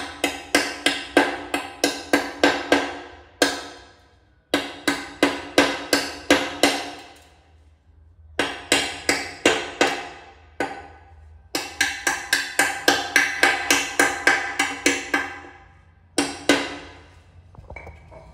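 Rapid hammer blows on a ringing metal tool or tile, about four a second, in runs of several seconds broken by short pauses.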